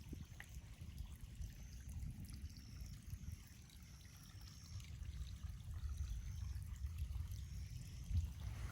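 Stormwater runoff running and trickling down a creek draw after a heavy thunderstorm, faint under a steady low rumble.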